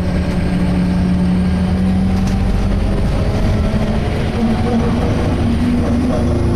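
Scania K230 bus running in service, heard from inside: a steady low engine and drivetrain rumble with a loud groaning tone over it. The groan holds one pitch for about three seconds, drops away, and comes back slightly higher about a second later. It is the awful-sounding groan the owner attributes to a fault of unknown cause.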